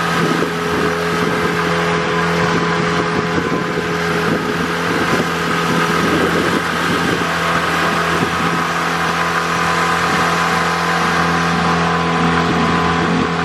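Motorboat engine running steadily at speed, with a constant hiss of wind and rushing water.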